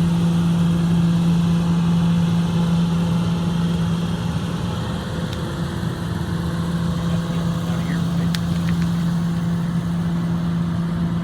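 Excavator engine running with a steady, even hum, dipping slightly in loudness midway, with a few faint clicks near the end.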